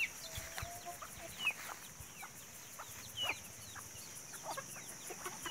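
Chickens clucking in short, scattered calls, heard faintly, over a steady high hiss.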